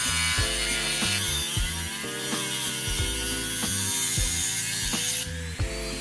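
High-speed rotary tool with a small cutting disc grinding through the metal shell of a USB-C connector, a harsh hiss that stops about five seconds in, followed by a whine falling in pitch as the disc winds down. Background music with a steady beat plays underneath.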